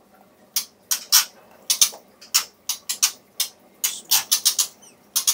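Adult white-rumped shamas giving about fifteen sharp, clicking alarm calls, irregularly spaced and coming quicker around four seconds in: the parent birds are agitated at their nest being disturbed.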